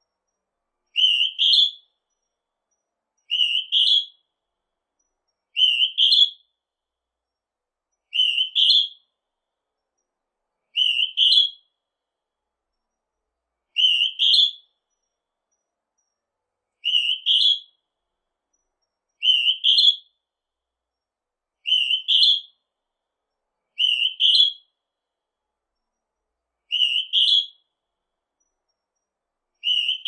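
Northern hawk-cuckoo (Hodgson's hawk-cuckoo) calling: a high, whistled two-note phrase, each note sliding upward, repeated about every two to three seconds.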